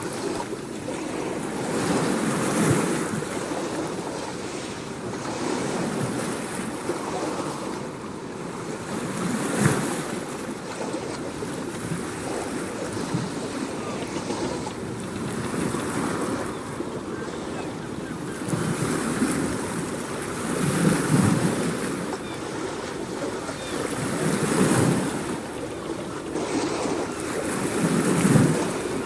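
Waves washing in: a steady rushing noise that swells and fades every few seconds.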